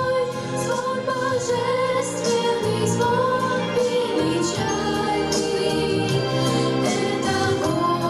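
Two female voices singing a song as a duet, with long held notes, over music.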